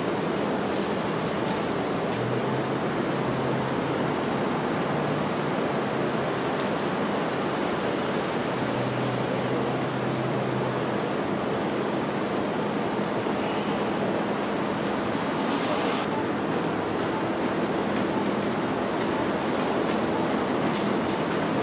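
City street traffic noise: a steady wash of passing vehicles with a low engine hum under it. A high hiss swells and cuts off sharply about two-thirds of the way through.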